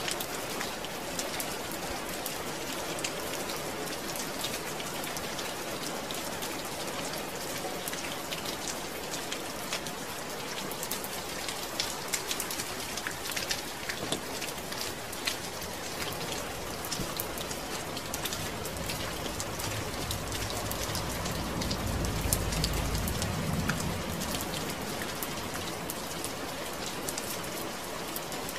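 Steady rain, with many close drops pattering on a surface. About twenty seconds in, a deep low rumble swells and fades.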